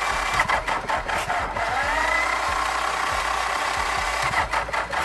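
Diesel engine running steadily, with a short rising whine about two seconds in and a few scattered knocks.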